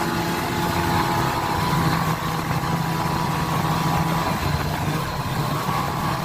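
Snowmobile engine running steadily while the sled travels along a snow trail, with a constant rushing noise over the engine note; the pitch dips slightly about four seconds in.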